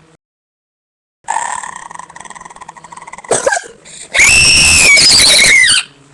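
A person making weird vocal noises: a rough, strained sound begins after a second of silence. It ends in a loud, high-pitched, distorted scream of about a second and a half that falls slightly in pitch.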